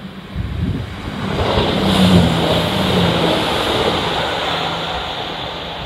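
Class 170 Turbostar diesel multiple unit passing close beneath, its underfloor diesel engines running with a steady low hum over wheel-on-rail noise. It swells to its loudest about two seconds in and begins to fade near the end. Wind buffets the microphone at the start.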